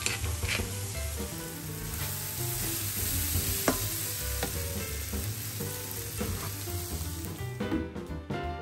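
Sliced mushrooms and onions sizzling in a frying pan as they are stirred with a wooden spatula, with one sharp knock about halfway through. The sizzle stops near the end, and a few soft knocks follow.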